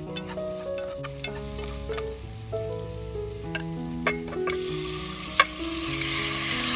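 Chopsticks clicking against an aluminium pot while lemongrass and spices are stirred, then a sizzle starts a little past halfway as marinated beef is tipped into the hot pot, with one sharp knock soon after. Background music plays underneath.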